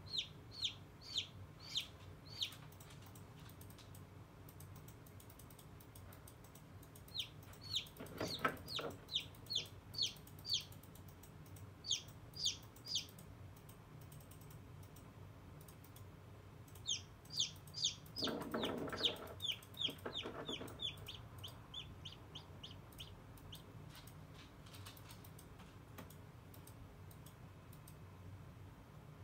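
Newly hatched chicken chick peeping: quick runs of short, high peeps, each falling in pitch, about three or four a second, coming in bouts with pauses between.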